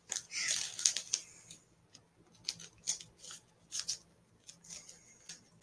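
Pokemon trading cards being handled: short scattered rustles and light clicks as cards are moved and slid about.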